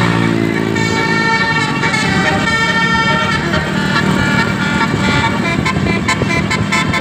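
A bus's 'telolet' basuri multi-tone horn playing a tune, its notes changing every second or so, over a low engine hum.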